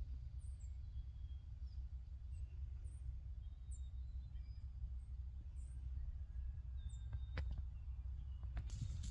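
Wind rumbling on the microphone, with faint short high bird chirps repeating every second or so and two sharp clicks near the end.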